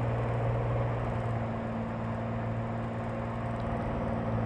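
Cirrus SR22's six-cylinder Continental engine running in flight with a steady low drone. It is running rough from a lean #2 cylinder, caused by a missing gasket on that cylinder's fuel injector.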